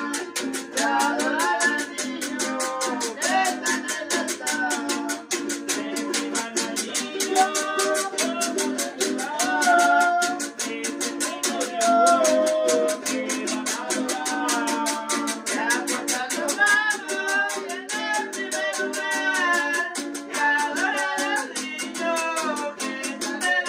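Voices singing a Venezuelan Christmas aguinaldo, accompanied by a strummed cuatro and a metal can scraper keeping a steady, fast rhythm.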